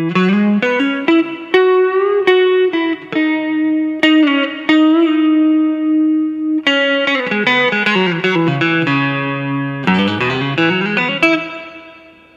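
Electric guitar, a Stratocaster with Seymour Duncan P-Rail pickups, played with a pick through a small NUX Mighty Lite amp. It plays a single-note lead line with string bends, slides up and down the neck about ten seconds in, then lets a last note ring and fade out near the end.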